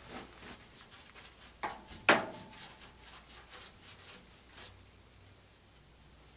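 Scattered light clicks, rubs and scrapes of hand work, with one sharp knock about two seconds in that rings briefly; quieter near the end.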